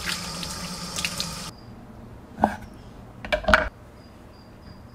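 Kitchen tap running water over hands and food at a stainless steel sink, shut off about a second and a half in. Two brief pitched sounds follow in the middle, the second the louder.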